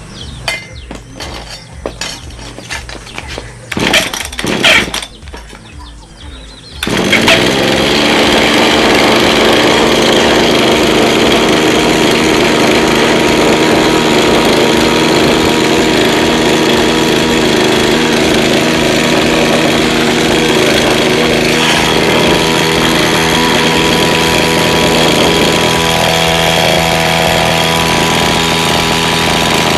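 Walk-behind lawn mower's small petrol engine being started: two short loud bursts, then about seven seconds in it catches and runs steadily.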